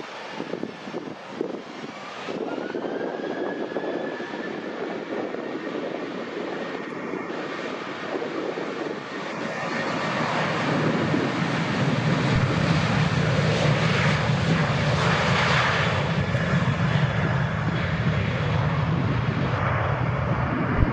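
Boeing 737 Business Jet's CFM56-7 turbofan engines at takeoff power: a whine rises in pitch early on, then the engine noise swells much louder about halfway through and stays strong to the end.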